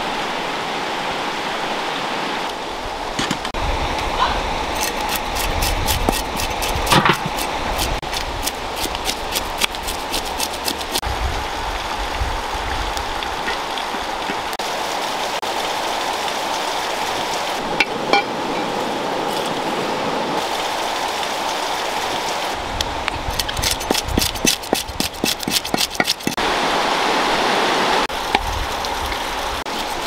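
A shallow river running steadily over stones, a continuous rushing noise. Two runs of rapid ticking sit over it, one starting about five seconds in and another near the end.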